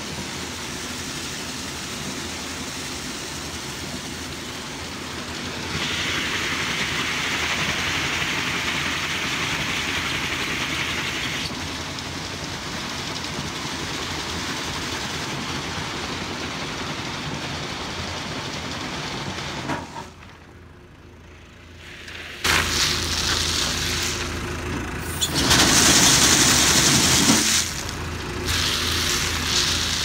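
A hazelnut harvesting machine running with a steady engine hum while a stream of hazelnuts pours and rattles into a bin. The sound drops away briefly about two-thirds of the way through, then comes back louder.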